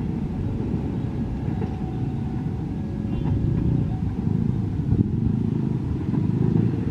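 Motorcycles and road traffic running at a railway level crossing, a steady low rumble.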